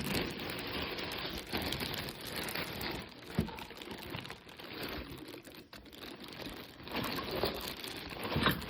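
Packaging crinkling and rustling as it is handled, a dense crackle of small clicks throughout.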